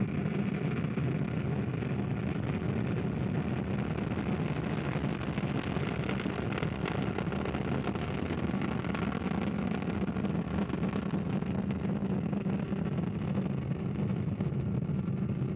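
Ariane 5 rocket climbing after liftoff: its Vulcain main engine and two solid rocket boosters make a steady, heavy rumbling roar, strongest in the low range and with no breaks.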